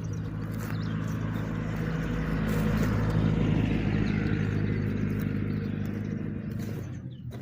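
A motor vehicle's engine running at a steady pitch, growing louder to a peak a few seconds in and then fading, like a vehicle passing by.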